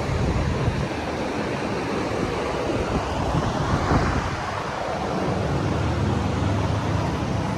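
Wind buffeting the microphone, a steady rushing noise, over a low, steady rumble.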